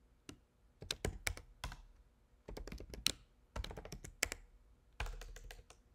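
Typing on a computer keyboard: short quick runs of keystroke clicks separated by brief pauses.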